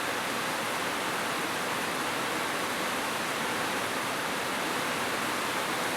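Heavy rain falling steadily, an even hiss with no breaks or single drops standing out.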